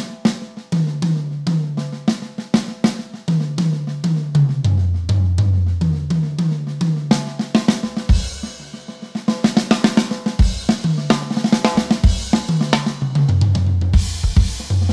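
Drum kit played in a demonstration of dynamics: soft snare ghost notes with accents, and tom fills hit harder, stepping down from the high toms to the floor tom several times. Bass drum hits and cymbal crashes come in about 8 seconds in and again near the end.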